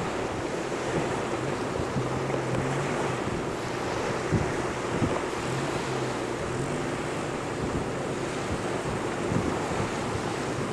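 Ocean surf breaking on a beach, with wind buffeting the microphone: a steady rushing noise.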